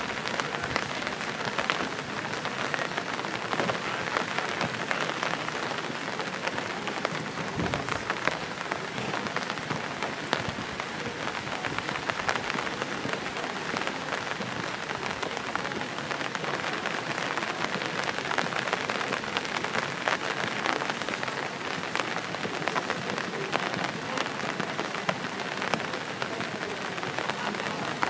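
Steady rain falling: an even hiss made up of many small drops hitting.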